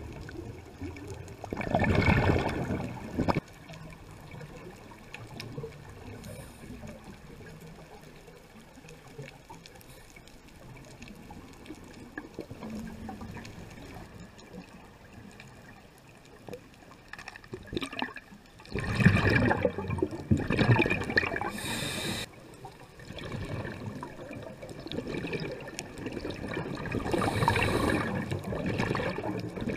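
A scuba diver's exhaled breath bubbling out of the regulator, heard underwater through the GoPro housing: a gurgling rush of bubbles about two seconds in, again around nineteen seconds and near the end, with a quiet underwater wash between breaths.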